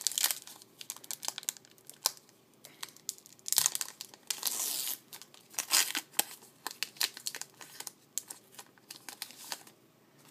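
The foil wrapper of a 2012 Bowman baseball card pack being torn open and crinkled in the hands, with many small crackles and a longer stretch of tearing and crinkling about four seconds in, settling down near the end.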